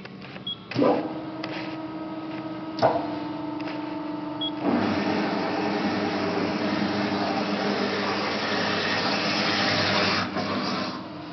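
Amada Promecam GH 2100 CNC machine's motor switching on with a clunk, then a steady hum. About five seconds in, a louder, even mechanical running noise starts and lasts about six seconds before dropping off near the end.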